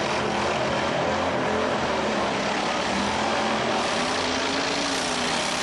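Engines of modified racing riding lawnmowers running, a steady dense engine noise with a pitch that rises slightly about four seconds in.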